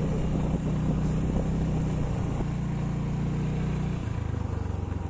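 TVS Ntorq scooter's single-cylinder engine running steadily while riding along; the engine note drops about four seconds in as the throttle eases off.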